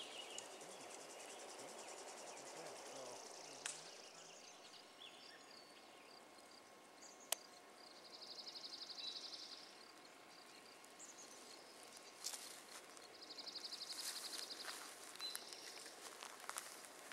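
Quiet outdoor background with a high, rapid trill sounding twice, each about two seconds long. A couple of sharp clicks come before the trills.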